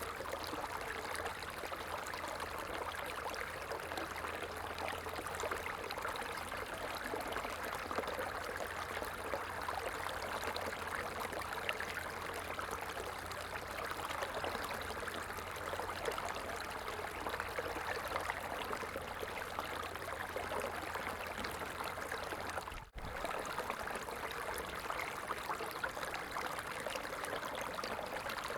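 Running water flowing steadily, an even rushing babble, with a momentary drop-out about three quarters of the way through.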